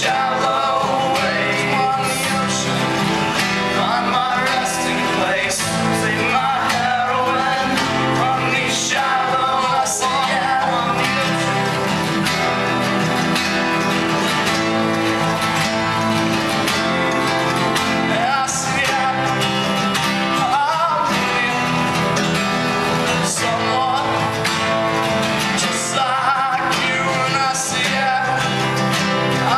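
A live acoustic song: a voice singing over acoustic guitar.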